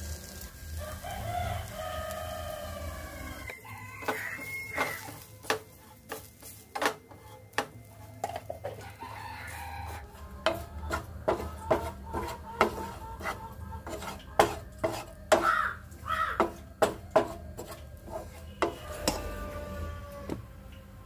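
Wooden spatula stirring and scraping onions and spice powders in a ceramic-coated frying pan, with a run of sharp knocks and scrapes from about four seconds in. A bird calls now and then in the background.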